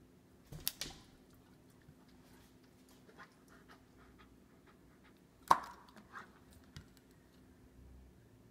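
Dogs snapping their jaws on pieces of steamed asparagus stalk: a crunching bite about half a second in, then a much louder, sharper snap with a brief ring about five and a half seconds in, and a few faint clicks between and after.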